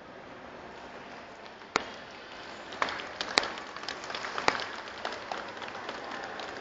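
Scattered hand claps from an audience over a steady hum of crowd noise, with a single clap about two seconds in and a denser spell of clapping from about three to four and a half seconds in.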